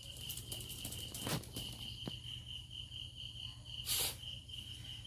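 A cricket trilling steadily, one high pulsing note, with two brief rustling clicks, the louder one about four seconds in.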